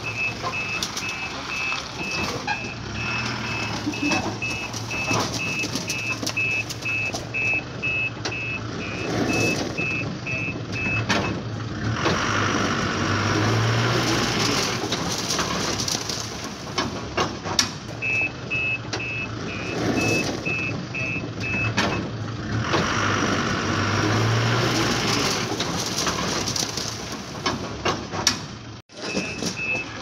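Truck reversing alarm beeping in a steady two-tone pattern about twice a second, over a low engine hum. The beeping stops about 11 seconds in and comes back for a few seconds later on.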